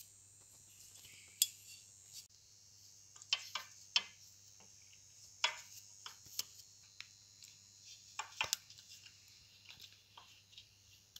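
Scattered light metal clicks and clinks, about ten separate taps, from parts being handled around the splined driveshaft and bearing retainer of a stern-drive lower unit, over a faint low hum.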